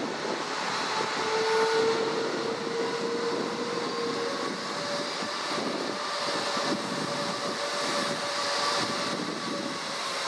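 Airbus Beluga XL's Rolls-Royce Trent 700 turbofan engines running at taxi power: a steady rushing noise with a faint whine that rises slightly in pitch.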